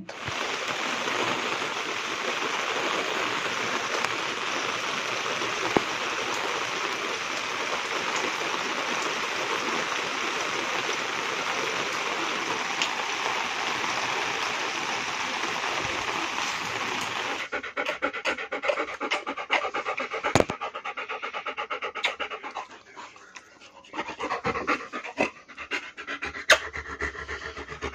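Steady rain falling, an even hiss that cuts off suddenly after about seventeen seconds. Then a dog panting close by, in quick irregular breaths.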